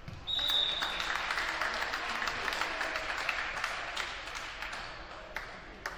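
A referee's whistle gives one short blast, and spectators in a gym applaud for about four seconds, fading near the end. A couple of sharp knocks follow near the end.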